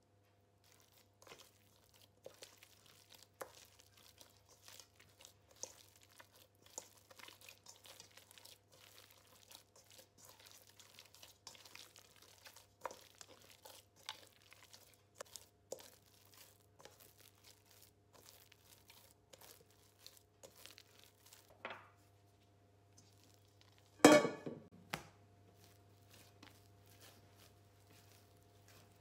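Sticky bread dough being stirred with a wooden spoon and worked by hand in a stainless steel mixing bowl: many small, irregular crackling and scraping sounds. About three-quarters of the way through, one loud metallic clank with a short ring.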